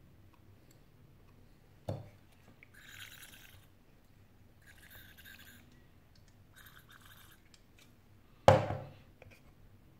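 An aerosol spray can hissing in three short bursts onto a cracked phone display to clean it. There is a sharp knock just before the first burst, and a louder knock about a second after the last.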